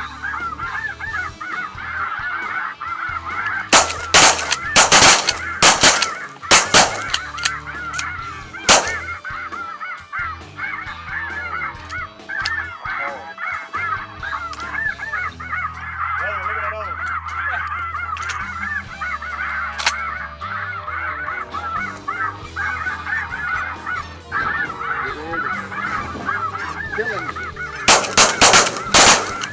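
A large flock of light geese calling constantly in a dense honking din. A volley of shotgun shots comes about four seconds in, two single shots follow within the next few seconds, and another quick volley comes near the end.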